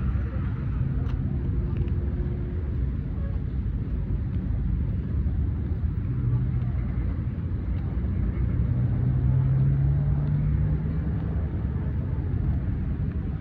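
Road traffic: a steady low rumble of passing vehicles, with one engine note rising slightly in pitch for a few seconds in the second half.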